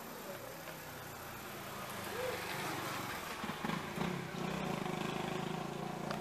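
A motor vehicle engine running steadily at a low pitch, growing louder about halfway through and holding there.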